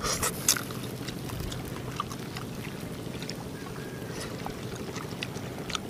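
A boat engine running steadily with a low drone, and a few sharp clicks in the first half second.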